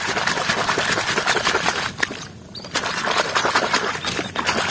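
Water splashing and sloshing as a hand swishes and scrubs a small plastic toy excavator through shallow muddy water, in two bouts with a short pause about two seconds in.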